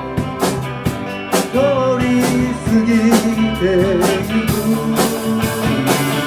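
Rock band playing an instrumental passage: drum kit hits, bass and guitar chords under a lead melody line with vibrato.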